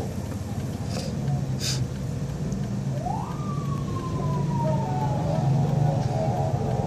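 Vehicle engine running steadily, heard from inside the moving vehicle, with two short clicks a second or so in. About three seconds in a siren-like wail rises quickly and falls away slowly, then turns into a steady pitched tone near the end.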